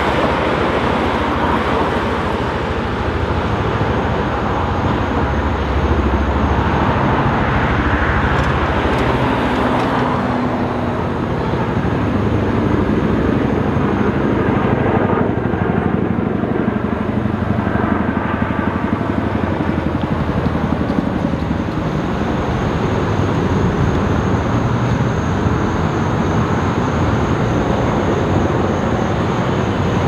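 Loud, steady rotor noise of a Boeing CH-47 Chinook tandem-rotor helicopter flying low overhead.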